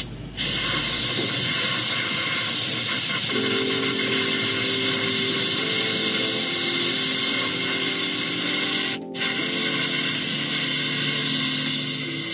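Compressed air hissing from an air blow gun held at the scooter's oil drain hole, blowing out the last of the oil. The air cuts off for a moment right at the start and again about nine seconds in, then carries on.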